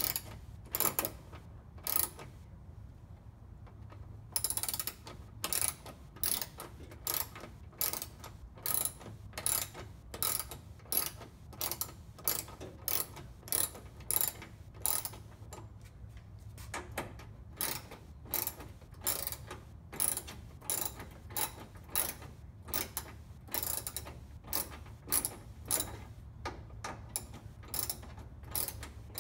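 10 mm ratchet wrench clicking on its back-strokes, about one to two strokes a second, as a bolt is backed out by hand. The clicking pauses for about two seconds near the start.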